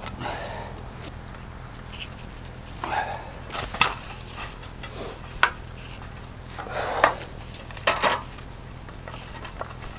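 Thin perforated sheet-metal disc, the bottom grate for a burn barrel, being worked by hand against a wooden board: a handful of sharp metallic clanks and short scrapes from about three seconds in, the sharpest near the middle and toward the end.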